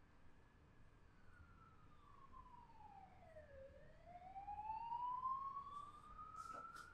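A faint siren wailing: a single tone slides slowly down over about three and a half seconds, then climbs back up. A few light clicks come near the end.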